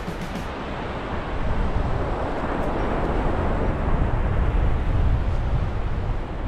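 Steady outdoor rushing noise with a heavy, fluctuating low rumble and no clear tones or distinct events.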